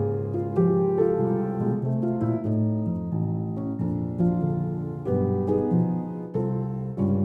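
Piano music, chords and notes struck at a slow, even pace and left to ring.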